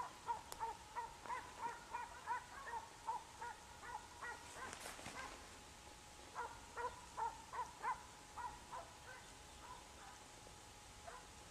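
Distant mixed-breed scent hounds baying in a quick series of yelps, about three a second, as they give tongue on a hare's trail. The baying stops for a few seconds midway, resumes, then fades.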